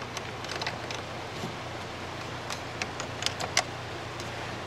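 Scattered small clicks and rattles of a portable jump starter's clamps and cables being handled and clipped onto a car battery's terminals, over a steady low hum.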